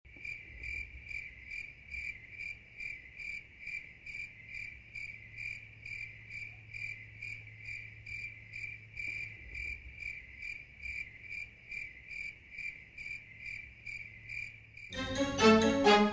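Cricket chirping steadily, about three high chirps a second, over a faint low hum. About a second before the end, loud music comes in.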